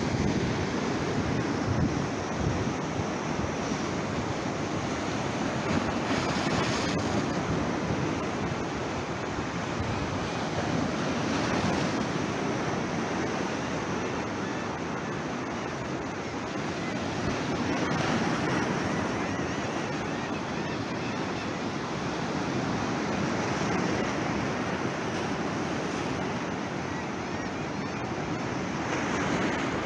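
Sea surf breaking and washing in over the rocks of a jetty: a steady rush of foaming water that swells louder every few seconds as waves come in, with wind buffeting the microphone.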